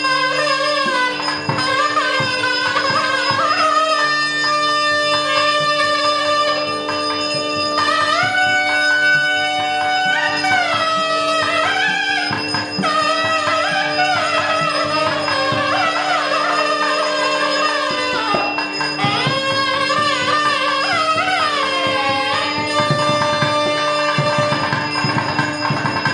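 South Indian Carnatic-style instrumental music: a melody sliding between held notes over a steady drone, with drum strokes underneath.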